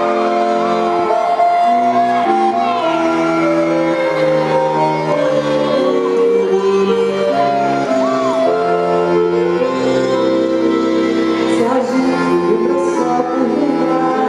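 Quadrilha junina dance music: an instrumental passage of long held chords that change every second or so.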